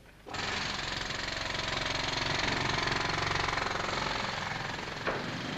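Pneumatic hammer chipping the old white ceramic tiles off a masonry vault: steady, rapid hammering that starts about a third of a second in. A single sharper knock comes near the end.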